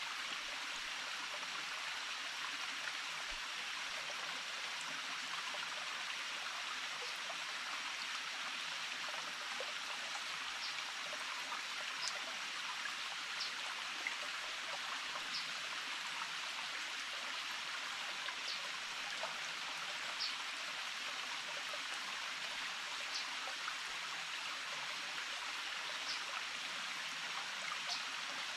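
Small forest stream running steadily. Faint short high ticks recur every second or two.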